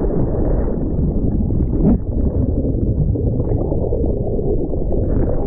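Muffled, steady rushing and gurgling of water heard through a submerged camera.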